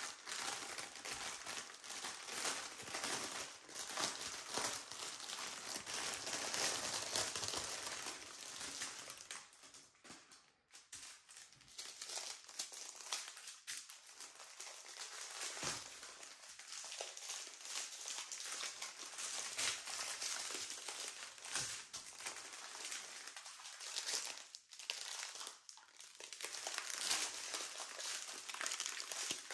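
Plastic packaging crinkling as a wrapped bundle of diamond-painting drill bags is opened and the strings of small plastic bags are handled and laid out. The crinkling comes in irregular bursts, with a quieter lull about ten seconds in.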